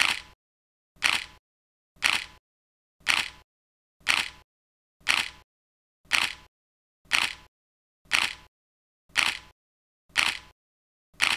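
Camera shutter clicks, one about every second, twelve in a row with silence between them.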